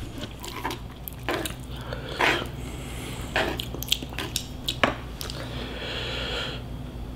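Close-miked wet chewing of spicy Korean cold noodles (Bibim Men), with scattered mouth smacks and clicks at irregular intervals and a stretch of soft hissing near the end.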